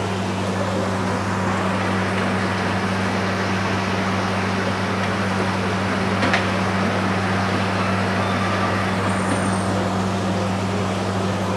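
Steady hum of aquarium pumps and filtration running, two low fixed tones over an even rushing noise, with a single short click about six seconds in.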